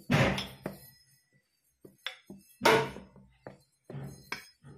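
A few sharp clacks and clatters of a steel rolling pin knocking against a steel plate, each ringing briefly; the loudest come at the start, a little past the middle and shortly before the end.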